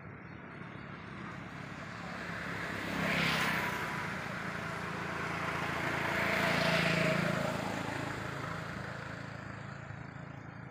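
Road traffic passing: two vehicles go by one after the other, each a hum and tyre noise that swells and fades. The first peaks about three seconds in, and the second, louder and longer, about seven seconds in.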